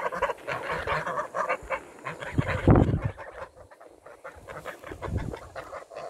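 Domestic geese calling in short, choppy honks and cackles, busiest in the first three seconds. Two low thumps come about two and a half and five seconds in.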